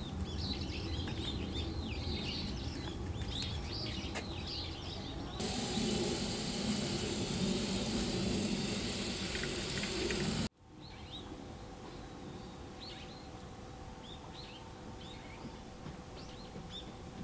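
Small birds chirping, then from about five seconds in a steady hissing spray of water rinsing soil off the plants in a planter; the spray stops suddenly about ten seconds in, leaving fainter birdsong.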